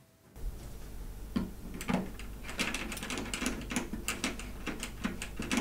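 Cable-set connector and its metal clip being plugged into the socket of a Sewerin UT 9000 generator: an irregular run of small clicks and metallic rattles over a low steady hum.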